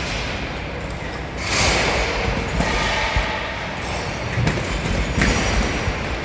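Sandstorm wind blowing in strong gusts, with a heavy low rumble of wind buffeting the microphone; a louder gust swells about a second and a half in.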